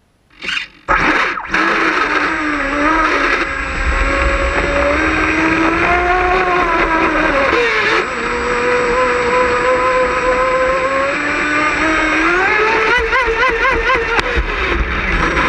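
Pro Boat Miss Geico RC racing boat's motor starting up about a second in and running hard, its pitch rising and falling with the throttle and wobbling quickly near the end, over the rush of water along the hull, heard from on board.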